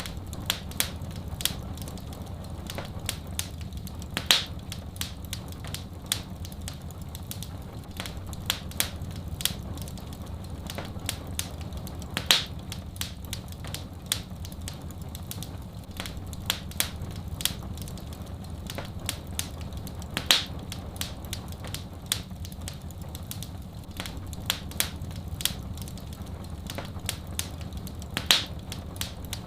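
Fireplace fire crackling: a steady stream of small snaps and pops over a low, even rumble, with a louder pop about every eight seconds.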